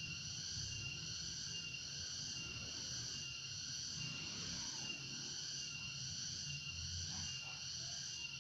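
A steady, unbroken chorus of insects chirping, such as crickets.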